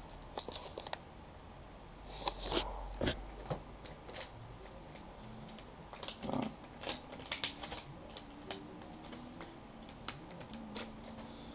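Quiet, irregular light clicks and rustles of Pokémon trading cards and an opened booster pack wrapper being handled, with a couple of busier bursts of handling.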